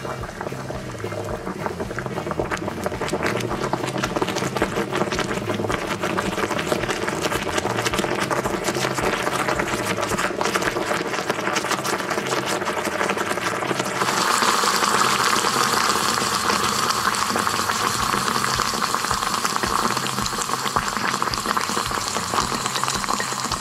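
A heated metal ball sizzling in a glass of toothpaste, boiling it with a dense, rapid crackle. About fourteen seconds in, it turns to a louder, steadier hiss.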